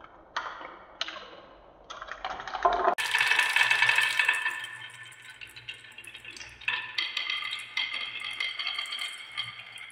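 Glass marbles rolling and clattering down wooden marble-run tracks. A few separate clicks at first, then from about three seconds in a dense stream of clicking and ringing, which fades and swells again later.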